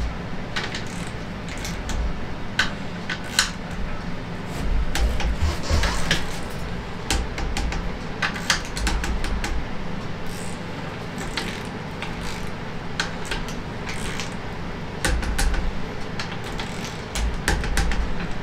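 Torque wrench and socket being worked on the cylinder head nuts of a Fiat 500 engine: irregular sharp clicks and metallic clinks, with a few dull thumps.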